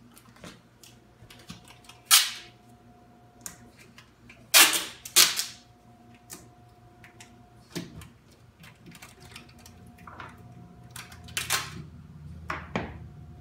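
Packing tape ripped off its roll in short, loud pulls, about four of them with the loudest two close together near the middle, and small clicks and taps between as the strips are pressed onto the countertop's edge banding to hold it while the glue sets.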